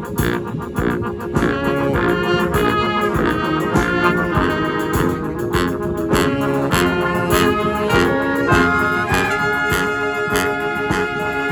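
Street brass band playing live: horns sounding sustained notes together over a steady drum beat.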